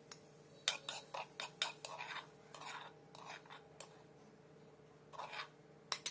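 Metal spoon scraping and clicking against a mortar and bowl while scooping out pounded ginger: a quick run of taps and scrapes in the first half, then a few scattered ones near the end.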